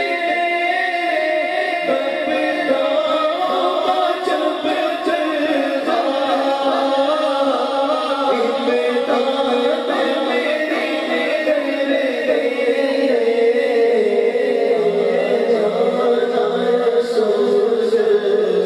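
A man singing a naat, an Islamic devotional song, unaccompanied into a microphone in long, held melodic lines. A second voice on another microphone sings along.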